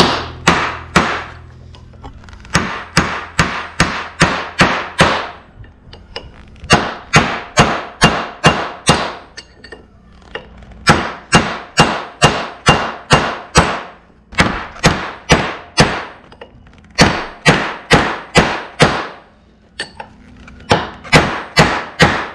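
Hammer striking a punch against the bearing on a differential pinion gear shaft: sharp metal-on-metal blows about three a second, in runs of several strikes with short pauses between, driving the old pinion bearing off the shaft.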